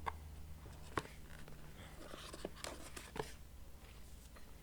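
Packaging being handled as items come out of a box: a few light clicks and taps with some soft rustling of cardboard and plastic.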